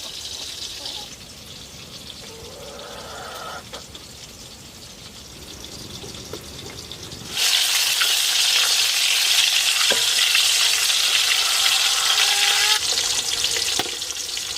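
Food frying in hot oil: a quieter sizzle, then a loud, steady sizzling hiss that starts suddenly about halfway through, as food goes into the pan.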